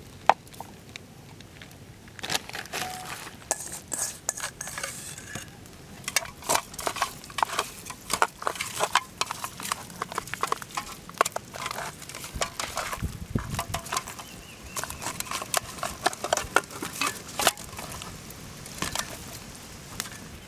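Raw pork ribs being mixed by hand with spices and chili in a metal pot: wet meat and bone knocking and scraping against the pot in quick, irregular clicks that start about two seconds in.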